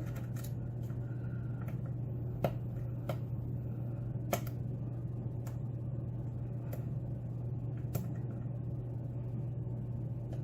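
Lock pick working the pin stacks of a pin-tumbler challenge lock under tension: a few faint, scattered clicks and ticks from pins and pick, over a steady low hum.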